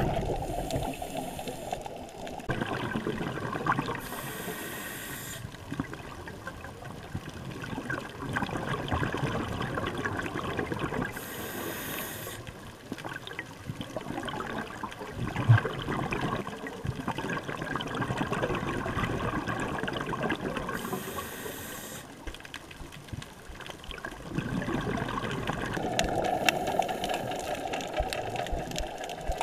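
Scuba diving sounds picked up underwater by a camera in its housing: a muffled, rumbling wash of water and exhaled regulator bubbles, with a short hiss every several seconds.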